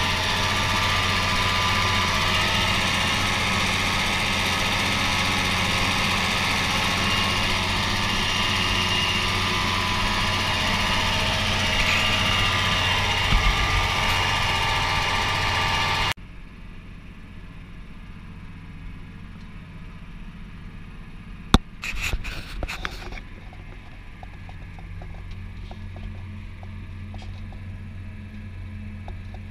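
Tractor engine running steadily, loud for about the first half; after an abrupt cut it is heard much more quietly, with a single sharp knock and a brief rattle a few seconds later.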